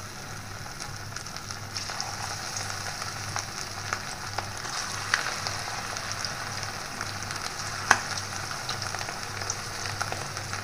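Egg-batter-coated chicken pieces deep-frying in hot oil in a wok, a steady sizzle with scattered crackles and one louder pop about eight seconds in.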